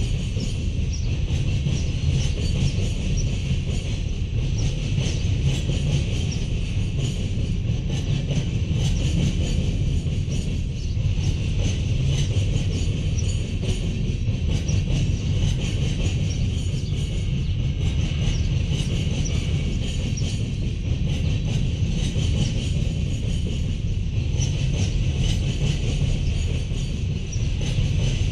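Freight train's covered hopper cars rolling past: a steady low rumble of wheels on rail with a constant high-pitched squeal above it.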